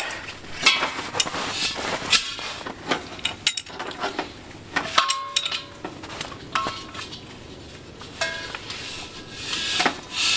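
Mr. Heater Buddy portable propane heater being handled while he tries to light it: irregular sharp clicks and light metallic clinks, a few of them ringing briefly.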